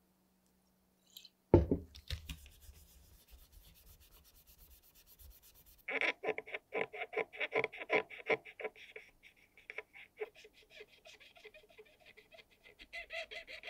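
A cotton swab scrubbing the grooves of a ridged plastic dial ring in quick rubbing strokes, several a second, loudest in the middle and lighter toward the end. A sharp knock about a second and a half in is the loudest sound.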